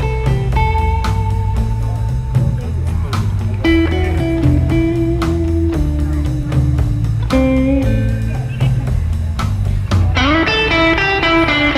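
Background music: guitar-led blues rock with a steady drum beat and a bass line, with a quick guitar run near the end.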